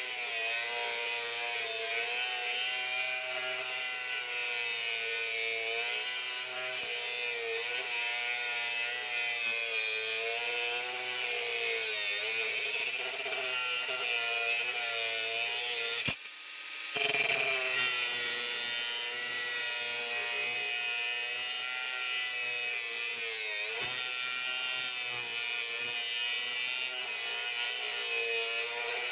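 Bosch GWS 180-Li 18 V cordless angle grinder running under load, its motor pitch dipping and recovering as the disc bites, with a harsh hiss of grinding. The sound breaks off for under a second about sixteen seconds in, then carries on.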